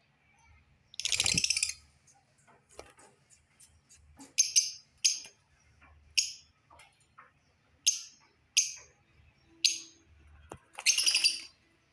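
Lovebirds calling: a run of about seven short, sharp, high-pitched chirps, spaced roughly a second apart, with two longer harsh screeches, one about a second in and one near the end.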